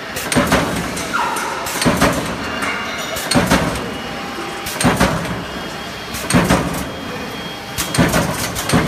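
Mechanical power press stroking on steel strip fed by a servo roll feeder: a heavy metallic clunk about every one and a half seconds, six strokes in all, over the steady running noise of the machinery.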